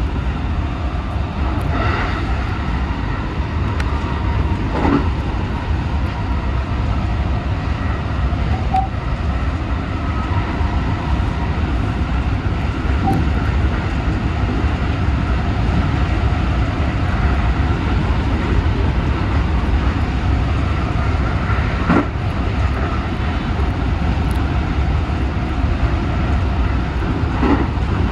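JR West 223 series 2000 electric train running at high speed, heard from its driving cab: a steady, loud rumble of wheels on rail and rushing air, with a few sharp knocks from the running gear.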